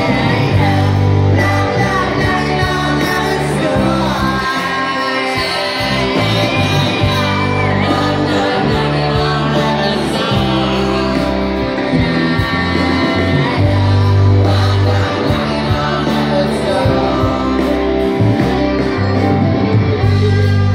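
Live band playing amplified music with singing: electric guitar and keyboards over a steady bass line, heard in a large festival tent.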